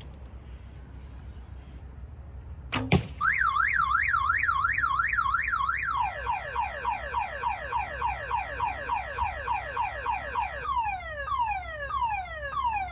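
A single sharp crack about three seconds in, then a car alarm going off. It works through its cycle: a fast up-and-down warble, then quick falling chirps about four a second, then slower falling sweeps.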